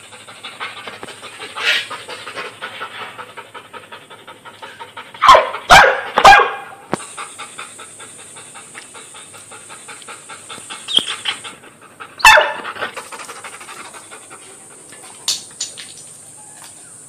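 A black dog panting rapidly, with loud barks breaking in: three in quick succession about five to six seconds in, and another around twelve seconds.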